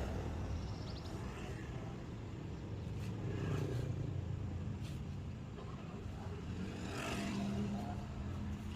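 Low, steady rumble of a motor vehicle engine running, with a steadier hum coming in near the end.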